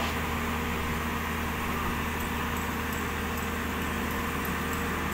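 Diesel engine of a hydraulic excavator running steadily, an even low hum with no change in speed.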